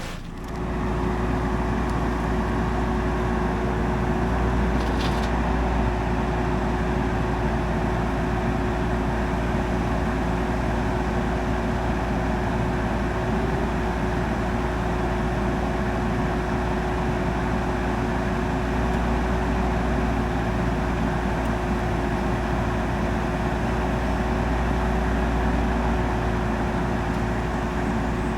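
Stihl MS661 chainsaw on a Logosol chainsaw mill running steadily through a cut, coming up to full running about half a second in and holding an even pitch throughout.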